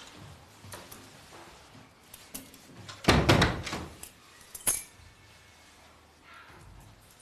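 A quick run of clicking and clinking rattles at the doorway about three seconds in, followed by one more sharp click about a second later.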